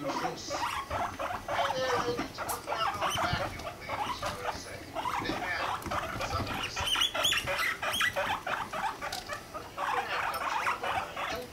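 Guinea pigs making quick, repeated short squeaking and chuttering calls during a mating chase, with light scurrying of feet on the cage floor.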